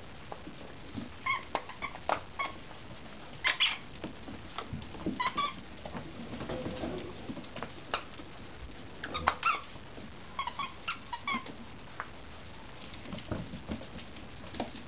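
Mini dachshund puppies at rough play over a squeaky sock toy: short, high squeaks come in quick clusters of two or three, with claws pattering and scrabbling on a hardwood floor.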